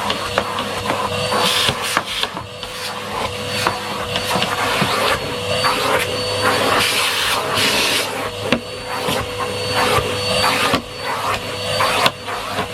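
Numatic Henry Pet cylinder vacuum cleaner running, with a steady motor whine over a rush of suction that swells and dips as the nozzle is worked, and frequent small clicks and knocks throughout.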